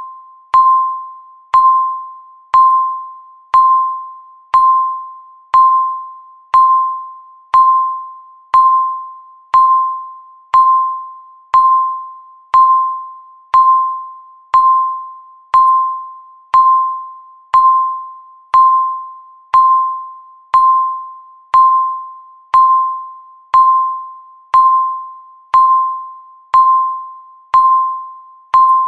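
Countdown timer beeping once a second: a single pitched electronic beep that starts sharply and fades away before the next, repeating evenly and counting off each second left.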